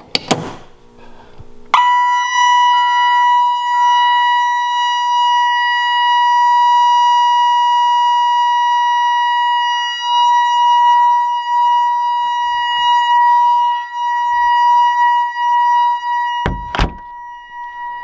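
A click as the police pull station is pulled, then about two seconds in the Honeywell Vista security system's alarm sounds: a decently loud, steady high-pitched tone with a second, pulsing tone beside it, the alarm set off by the pull station. Near the end, a loud thump.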